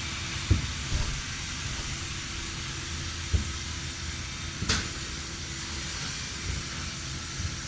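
Steady hiss and low rumble with a faint constant hum, broken by a few soft knocks.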